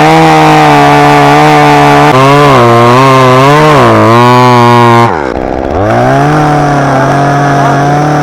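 Gas chainsaw running at high revs, cutting into a fused spruce stem, its engine pitch wavering as the cut loads it. About five seconds in the throttle drops off briefly, then it revs back up and keeps cutting.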